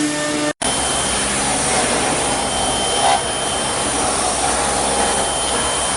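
CNC machine running: a dense, steady cutting and air noise with a thin high spindle whine and a low hum. A brief dropout about half a second in, where one machine's sound is replaced by another's.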